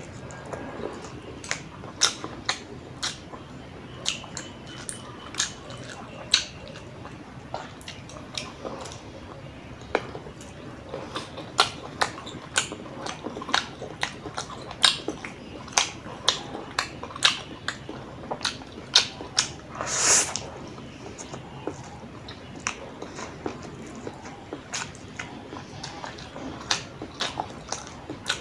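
Close-miked eating sounds of a man chewing instant noodles and sausage: wet chewing and lip smacking with many sharp mouth clicks at an uneven pace, and one longer, louder noisy sound about twenty seconds in.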